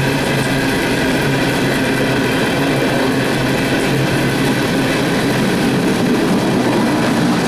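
Empty CSX coal train's hopper cars rolling past, a steady rumble of steel wheels on the rails with a constant drone, over the hiss of heavy rain.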